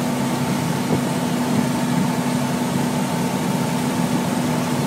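Fire engine's diesel engine running steadily at the scene, a constant drone with a steady hum in it.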